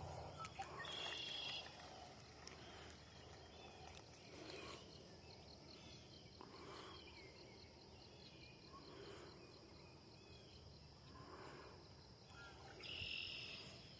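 Near silence: faint outdoor ambience with a steady, high insect trill and a few soft chirps.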